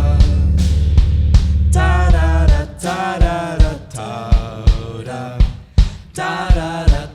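Live indie rock band playing: a sung lead vocal over drums and bass. About two and a half seconds in the heavy low bass drops out, leaving the voice over sparser drum hits.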